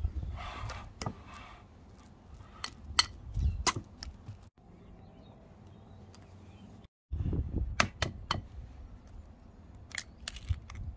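A fork mashing boiled potatoes in a glass bowl: soft squashing and scraping, with sharp clicks of the tines against the glass. After a quieter stretch come more clicks, and near the end an egg is cracked over the bowl.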